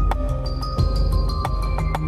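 Intro music: held synth notes over a steady bass line with a regular beat.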